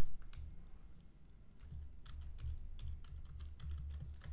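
Keystrokes on a computer keyboard: light, irregular typing as a password is entered, over a low hum.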